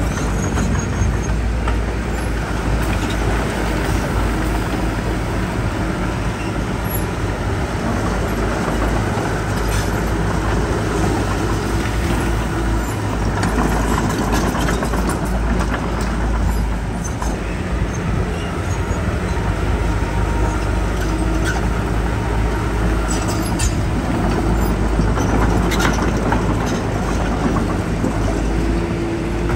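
Diesel engines of heavy earthmoving machinery running steadily, with a strong low rumble and occasional brief clanks.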